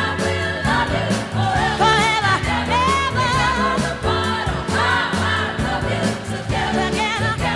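Background music: a song with sung vocals, choir-like voices over a steady bass line.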